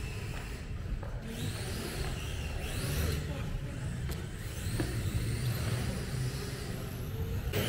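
Electric radio-controlled drift cars running on a carpet track, their motor whine rising and falling in pitch as they accelerate and slide, over a low rumble.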